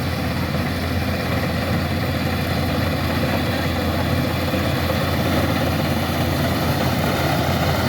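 Kubota rice combine harvester's engine running steadily, a loud constant low drone with no changes in speed.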